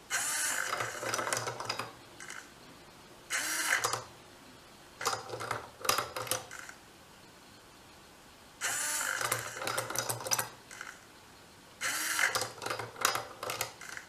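A small hobby servo whines as it swings the ladder of a tumbling-block ladder toy over, then the tumbling block clacks rapidly down the rungs. The cycle repeats about four times, with short pauses between.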